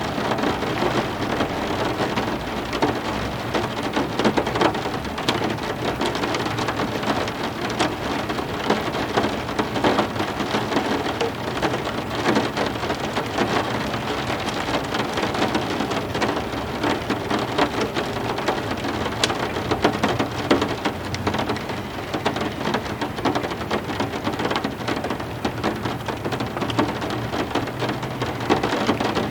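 Heavy rain falling steadily, with many single drops hitting a surface close by, over a low rumble of thunder.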